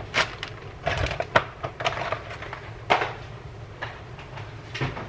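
Light knocks and clicks of kitchen items being handled and set down on a counter, scattered and irregular, the loudest about three seconds in, then a refrigerator door being opened.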